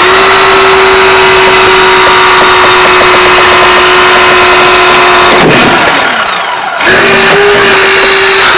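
Hurst eDRAULIC 3 battery-powered hydraulic spreader running under load as its tips force a car door open, its electric motor and pump giving a steady whine. About five and a half seconds in, the whine winds down for about a second, then picks up again.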